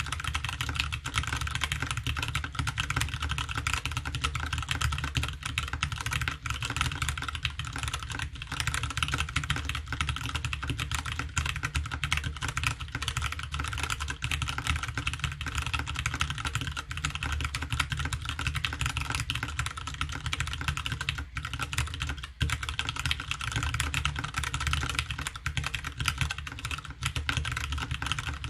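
Continuous fast typing on a CSTC40 ortholinear keyboard with a polycarbonate plate, lubed and filmed Hyperglide Brown switches and Ranked keycaps: a dense, steady stream of keystrokes with no pauses.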